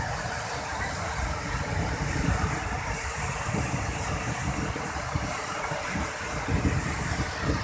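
Floodwater overflowing a dam's steel crest gates and falling down the spillway: a steady rush of water with an uneven low rumble.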